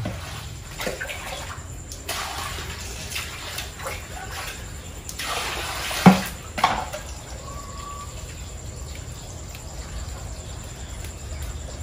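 Water poured from a plastic dipper into a metal basin of leafy greens, splashing in two spells, with two sharp knocks near the middle; afterwards softer splashing as the greens are washed by hand.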